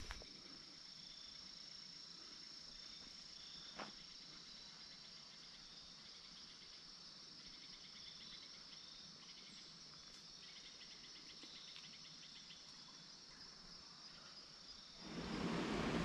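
Crickets trilling steadily and faintly, a continuous high buzz with softer pulsing chirps under it. About a second before the end, a much louder steady rushing noise cuts in suddenly.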